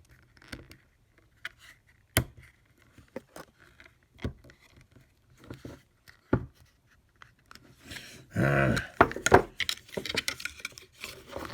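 Metal parts and packaging of a door lock installation kit being handled: scattered clicks, clinks and light knocks, turning into a louder clatter with a brief ringing sound about eight seconds in.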